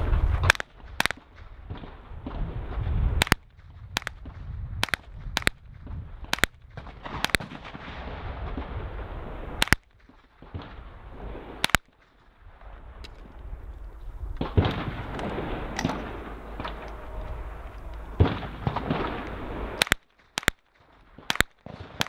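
Rifle shots fired one at a time at an uneven pace: about a dozen sharp reports in the first twelve seconds, then a pause of several seconds, then a few more near the end.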